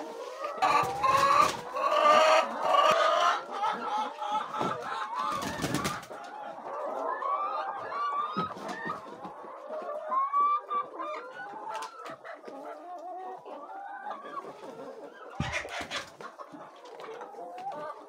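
Brown laying hens clucking and calling, busiest and loudest in the first few seconds, with a few short bursts of rustling noise.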